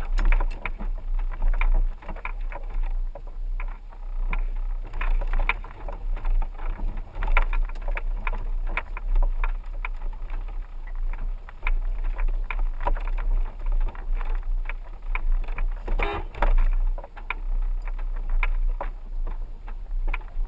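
4x4 vehicle driving slowly over a rough dirt road: a low rumble of the drive with frequent quick knocks and rattles from the bumpy ride, and one brief louder sound about sixteen seconds in.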